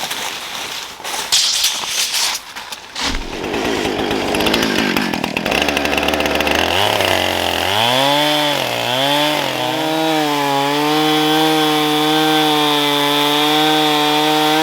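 Clattering and knocks, then a chainsaw engine comes up about five seconds in, revs up and down a few times, and settles into running steadily at high speed.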